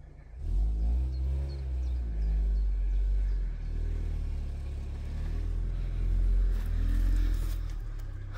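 A van's engine running and revving as the van drives up and manoeuvres, starting about half a second in, with a deep engine note that rises and falls in pitch.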